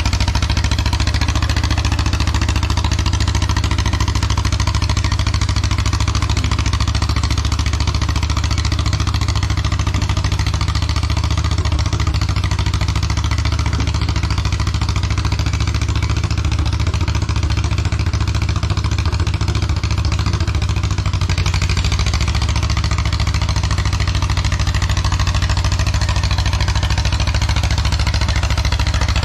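1954 John Deere 40C crawler dozer's two-cylinder engine running steadily and loudly.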